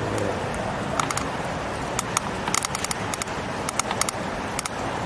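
E-bike riding along a city street: steady road and traffic noise, with a run of sharp, irregular clicks and rattles from about a second in until near the end.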